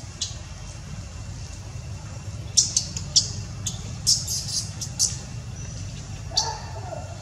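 Short, sharp crackles of dry leaf litter as a macaque mother shifts about with her baby, over a steady low hum. Near the end comes a brief call.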